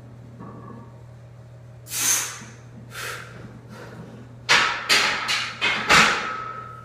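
Heavily loaded barbell (about 395 lb) being racked into the hooks of a steel power rack: a quick run of about six metal clanks, the last leaving a ringing tone. Before it come two hissing breaths from the lifter.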